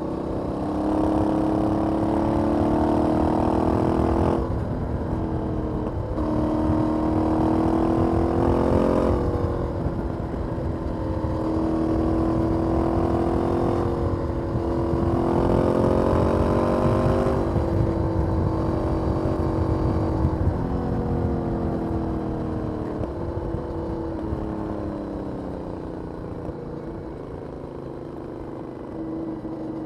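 Aprilia 900 V-twin motorcycle engine on its stock exhaust, accelerating through the gears: the pitch climbs and drops sharply at three upshifts, then falls away as the bike eases off, with a low rushing rumble underneath.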